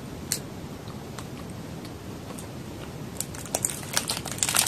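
Quiet chewing of a soft sweet bun, then from about three seconds in a run of crisp crackles as the plastic wrapper around the bun crinkles while it is lifted for a bite.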